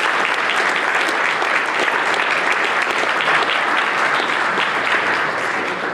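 Audience applauding: dense, steady clapping that begins to die down near the end.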